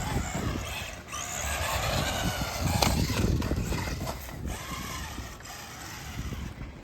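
JJRC 8805 RC car's electric motor and gearbox whining, the pitch rising and falling as it speeds up and slows, over a clatter of tires and chassis on rough ground. It grows fainter near the end.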